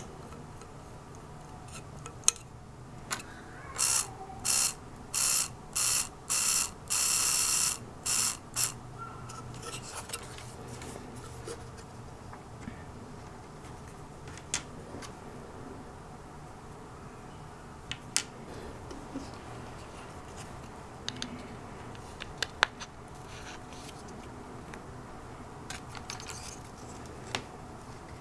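Plastic gears of a 3D-printed gearbox turning in about seven short bursts, the longest lasting about a second, followed by scattered small clicks and taps as the plastic parts are handled.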